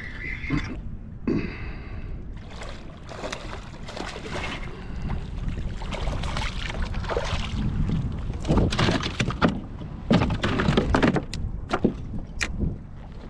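Water splashing and knocks on a fishing kayak as a sea bass is reeled up and brought aboard, with the sharpest and loudest knocks and splashes in the second half, over a steady low rumble.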